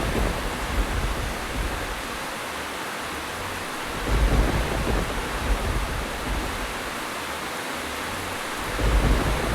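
Steady rain falling, an even hiss, with low rolls of thunder swelling in about every four to five seconds: at the start, around four seconds in, and near the end.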